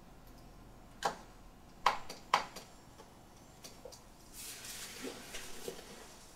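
Quiet office room tone with three sharp clicks about one, two and two and a half seconds in, then rustling of clothing and a bag as a person gets up from a desk.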